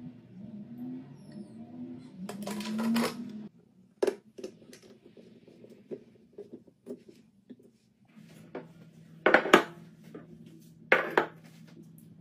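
Liquid poured from a jug into a narrow plastic bottle, its pitch rising as the bottle fills, stopping about three and a half seconds in. Then small clicks and taps as a pump dispenser is screwed onto the bottle, and a couple of sharp knocks near the end.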